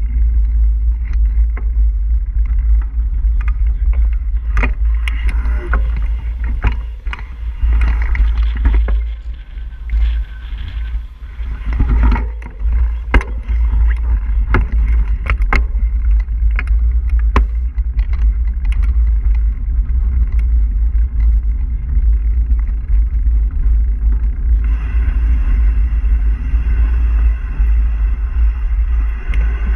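Mountain bike rolling along a rough lane: a steady low rumble of wind on the microphone, with scattered clicks and rattles from the bike and its tyres on grit. About 25 seconds in, a brighter hiss of tyres on gravel joins in.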